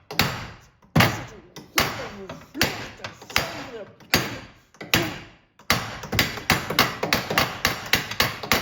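Repeated hammer blows on a Nissan S13's rusted, pressed-in rear wheel hub, trying to drive it out; it does not budge. The blows come about one a second, then quicker, about three a second, in the last third.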